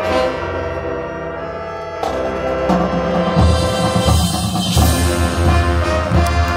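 Marching band playing held brass chords with timpani and percussion, growing louder as heavy low drums come in about three seconds in.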